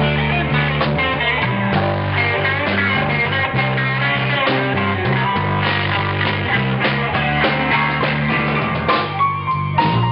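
Instrumental passage of a blues song: guitar played over a steady beat on drums, with no singing.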